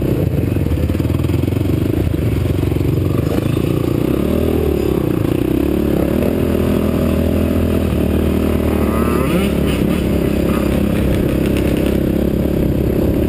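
Sport quad's single-cylinder four-stroke engine running under way on a dirt trail, its note rising and falling as the throttle is worked.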